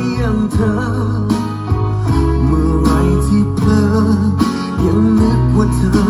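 A love song with guitar and a singing voice played through a Bose Home Speaker 500, with held bass notes under it.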